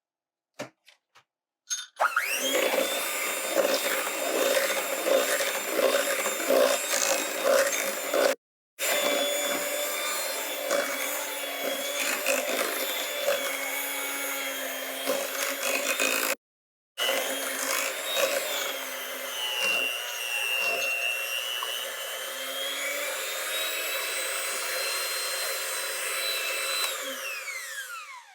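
Electric hand mixer running, its beaters working a sticky yeast dough. The motor whine starts about two seconds in, dips in pitch and recovers later on, then winds down and stops near the end.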